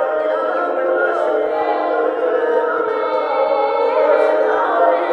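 Several recorded singing voices layered together by an interactive sound sculpture into a choir-like blend of sustained sung notes.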